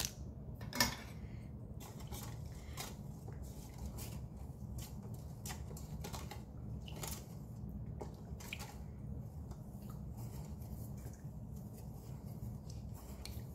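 Wooden spoon stirring thick sauce in a stainless steel pot: soft wet squelching with light taps and scrapes against the pot, over a steady low hum. A sharper click stands out about a second in.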